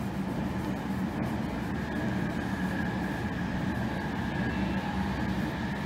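Domestic cat purring steadily and close up as its chin and cheek are scratched, a low continuous rumble of rapid pulses.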